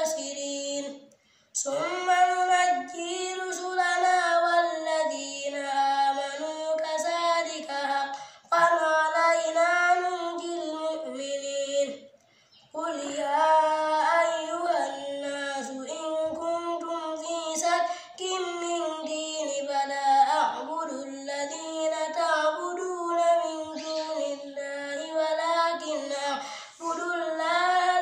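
A child chanting Qur'anic recitation in Arabic, in long melodic phrases with held, wavering notes, pausing for breath about a second in and again about twelve seconds in.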